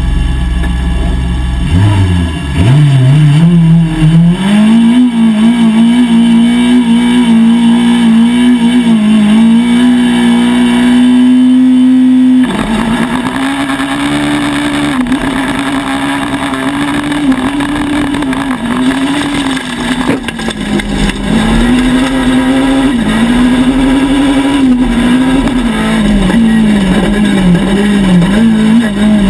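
A VW Polo rallycross car's engine, heard from inside the cockpit. It idles at first; about two seconds in the revs climb and are then held high and steady for several seconds. Near the middle the sound changes suddenly, and from then on the revs rise and fall again and again as the car is driven hard.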